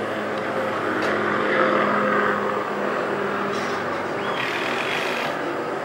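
Steady engine noise of a vehicle, a constant hum with a wash of noise over it.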